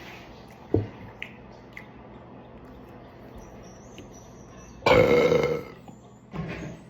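A person lets out a loud, long burp about five seconds in, then a shorter, quieter one, the gas brought up by a chugged carbonated energy drink. A short knock sounds just under a second in.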